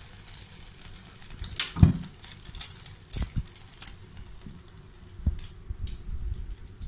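Egg-dipped potato nuggets shallow-frying in hot oil in a pan, a soft sizzle. Several sharp knocks are heard over it, the loudest about two seconds in.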